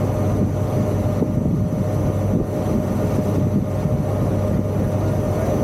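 Tour ferry's engine running steadily underway, a constant low drone and hum heard on board.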